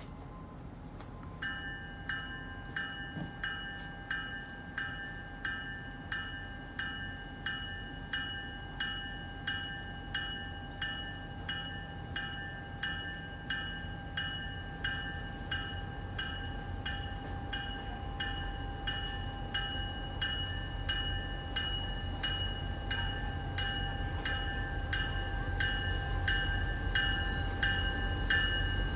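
Railroad grade-crossing bell that starts ringing after about a second and a half and keeps striking steadily, about three strikes every two seconds, the warning of an approaching train. Under it the low rumble of the oncoming commuter train grows louder toward the end.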